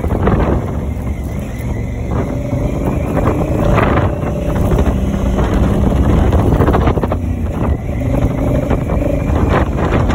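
Honda Africa Twin's parallel-twin engine running steadily under way, heard from the handlebars, with wind rushing over the microphone.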